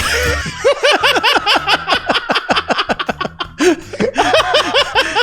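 Hearty laughter: a long run of quick, high-pitched laughs.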